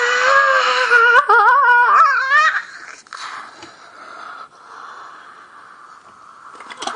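A long, drawn-out, high-pitched cry of 'No!', held steady and then wavering before it breaks off about two and a half seconds in. Quieter room noise with a couple of faint knocks follows, and another high held cry starts at the very end.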